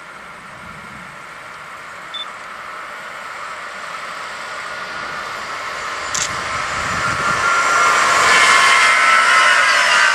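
Regional push-pull train of DB coaches approaching and passing close by, its running noise growing steadily louder. Several high ringing tones join in over the last couple of seconds.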